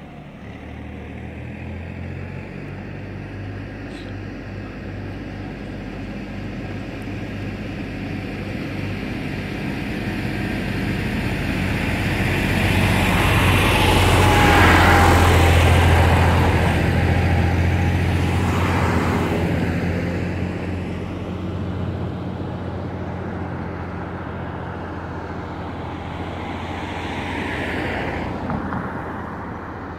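A car driving past close by: its tyre and engine noise builds to a peak about halfway through, then fades away. A second, fainter vehicle passes near the end, over a steady low traffic hum.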